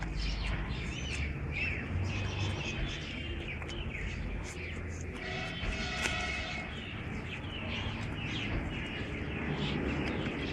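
Birds chirping and calling over a low rumble, with one longer call about halfway through.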